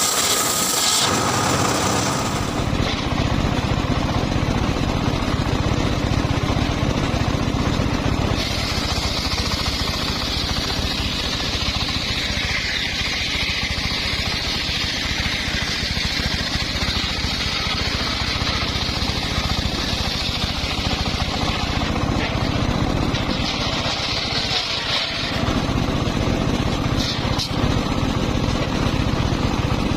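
Engine-driven circular saw running steadily. From about eight seconds in until about twenty-one seconds, and again briefly near twenty-four seconds, a higher hissing whine rises over the engine as the blade cuts through wood.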